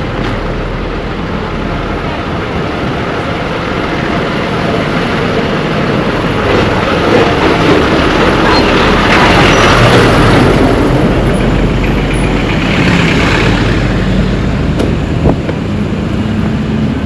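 Roadside traffic: a motor vehicle passing close by, its engine and tyre noise building to a peak about ten seconds in and then easing off.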